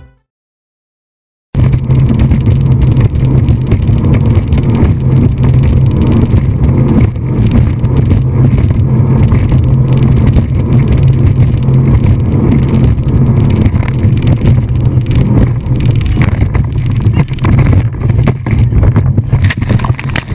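Speedboat engine running hard at speed, heard from on board as a steady, loud low drone mixed with wind noise. It starts about a second and a half in.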